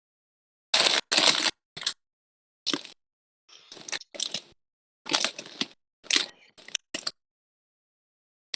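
Plastic food packet crinkling in short, irregular rustles, about a dozen over several seconds, as it is handled and cut open with scissors.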